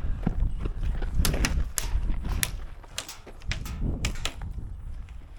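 Scattered sharp snaps of airsoft guns firing, irregularly spaced, over a low rumble.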